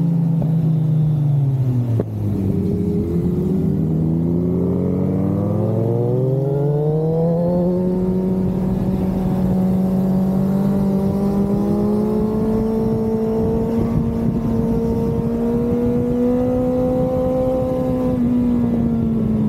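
Motorcycle engine under way: revs fall over the first couple of seconds with a brief dip in level, stay low for a few seconds, then climb again and hold a steady, slowly rising pitch before easing off near the end.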